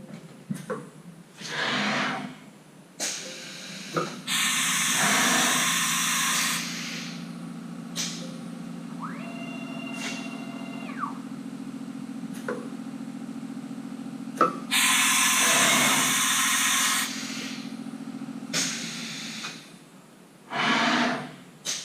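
Haas VF-3 CNC mill running an automatic tool change: loud bursts of air hiss with sharp clicks and clunks as the drawbar releases and the carousel moves in and out, and a steady motor hum for several seconds while the tool carousel turns to the commanded pocket, with a short rising-then-falling whine near the middle.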